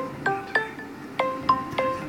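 Samsung Galaxy Note5 alarm tone playing: a melody of short chiming notes that fade quickly, about three a second, with a brief pause about halfway.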